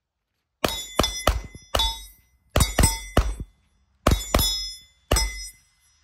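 A run of sharp metallic clanks and clinks, about eleven in four quick clusters, each leaving a brief ring at the same pitches: metal objects being knocked together and set down on a hard surface.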